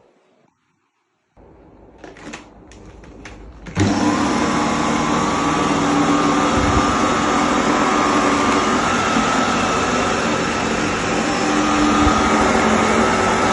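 A mid-1980s Sebo 360 Electronic upright vacuum cleaner: a few faint clicks of handling, then its motor switches on abruptly about four seconds in and runs steadily, with a constant high hum over the rush of air.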